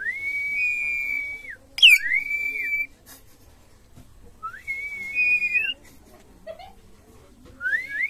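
Long whistled notes used to teach a caged myna to whistle: three times a note slides up, holds steady and slides down, with a sharp whistle sweeping down from very high about two seconds in, and another rising note near the end.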